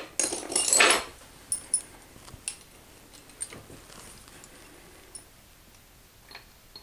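Narrow glass mosaic tile strips clinking against one another as they are handled and pressed into thinset mortar: a louder rattle in the first second, then scattered light clicks.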